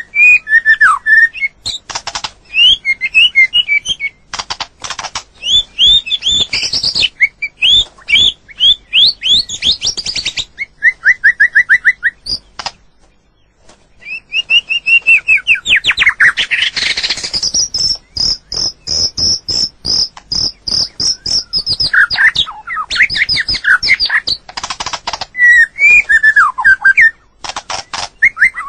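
White-rumped shama singing: varied whistled phrases that glide up and down, quick runs of repeated notes and sharp clicks, with a short pause about halfway and one long high note held for several seconds after it.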